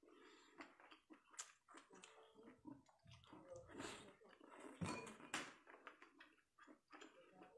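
Faint close-up mouth sounds of someone eating skewered octopus: wet chewing and slurping with irregular sharp smacks and clicks, the loudest about five seconds in.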